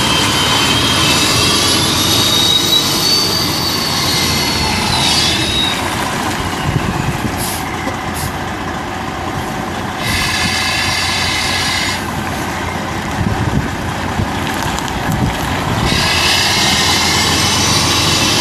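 Detroit Diesel Series 60 14.0-litre straight-six turbo diesel of a 2007 Sterling L9500 semi truck idling, with a high whine that wavers in pitch. The sound drops for several seconds in the middle and comes back louder near the end.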